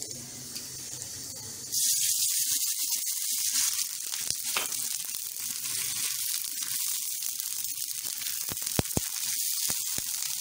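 Half a cup of water poured into hot ghee with fried garlic and red chilli in a frying pan: a sudden loud sizzle a little under two seconds in that carries on, easing slightly, as a spatula stirs. A few sharp clicks near the end.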